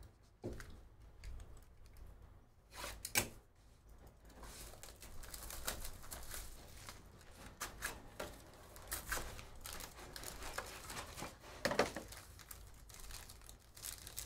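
Basketball trading card packs being torn open by hand: wrappers crinkling and tearing, with scattered sharp clicks and taps as cards and cardboard are handled.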